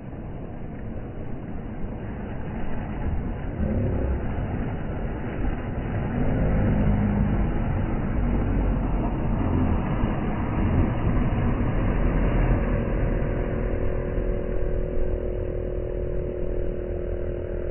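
Boat outboard motor running, getting louder a few seconds in, with a steady hum of several tones from about twelve seconds in.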